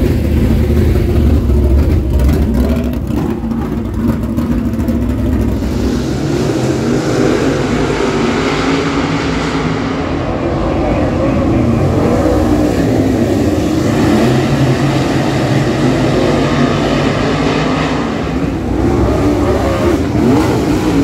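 A pack of dirt late model race cars running around a dirt oval, their V8 engines blending into a loud, steady drone. Near the end the engines rise in pitch as they rev.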